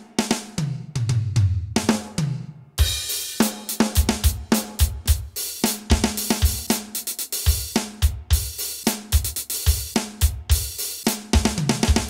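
Electronic drum kit played through a Roland TD-8 drum module: a tom fill falling in pitch, then from about three seconds in a steady beat of kick, snare and cymbals, with another fill near the end.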